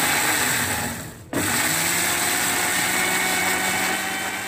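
Panasonic multi-purpose food processor grinding red chillies: the motor runs loudly, cuts out for a moment about a second in, then starts again and runs on with a steady hum.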